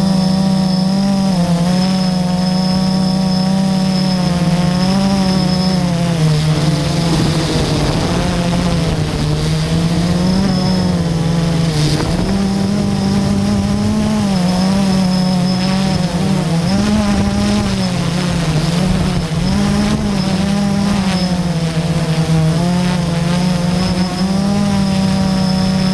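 FPV drone's electric motors and propellers whining loudly in flight. The pitch rises and falls every second or two as the throttle changes.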